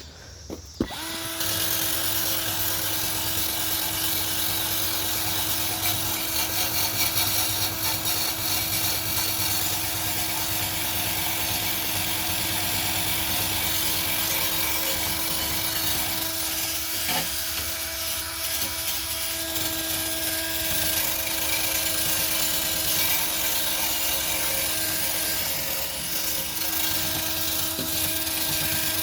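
Electric drill running a scrub brush against a street light fixture's housing, scrubbing off dried bird droppings. It starts about a second in and runs steadily, a constant motor whine under the hiss of the brush.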